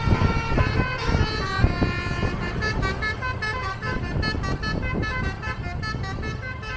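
Bus basuri telolet horn playing a quick melody of short notes that step up and down, starting about a second in, over a low rumble of traffic.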